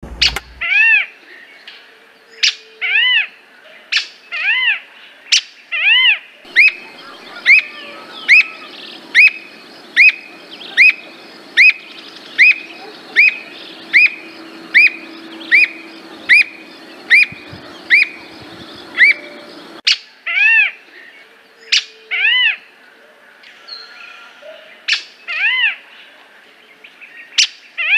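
Squirrel cuckoo calling: a long series of short, arched whistled notes, spaced out at first, then a steady run of about one and a half notes a second, spacing out again about two-thirds of the way through.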